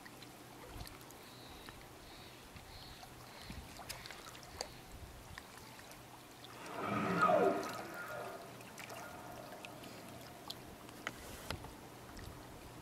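A humpback whale blowing: one loud exhale about six and a half seconds in, lasting over a second, with a wheezy falling tone through it. Faint water sounds and light ticks throughout.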